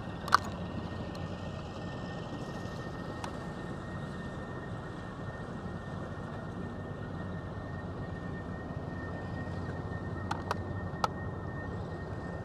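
Steady low rumble heard from inside a parked vehicle's cabin in light rain, with a faint steady high whine. A few sharp ticks of raindrops hit the body: one near the start, one about three seconds in, and three close together near the end.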